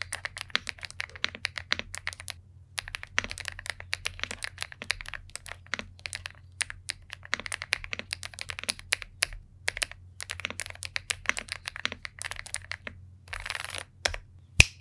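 Typing on an Epomaker TH85 mechanical keyboard: quick runs of key clacks with short pauses, and one loud key strike near the end. A brief rustle comes shortly before that strike, over a low steady hum.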